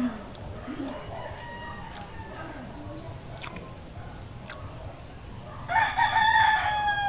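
A rooster crows once near the end, a single loud call of about a second and a half that falls slightly in pitch as it ends. A few faint clicks come before it.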